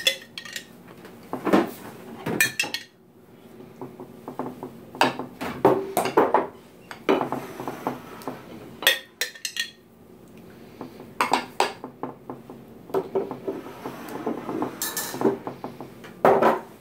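Metal spoon clinking and scraping against a glass baking dish while spreading tomato sauce, in irregular clusters of short knocks and scrapes.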